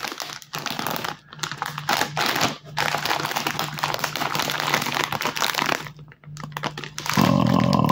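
A foil-lined plastic snack bag crinkling and crackling as it is squeezed and worked open by hand, in irregular runs with short pauses. Near the end comes a short buzzing sound.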